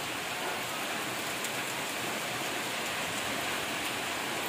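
Steady monsoon rain falling, an even hiss with faint scattered drop ticks.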